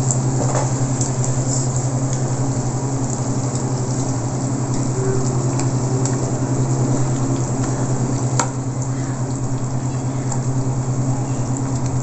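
A steady low machine hum, with faint light clicks and one sharper click about eight seconds in.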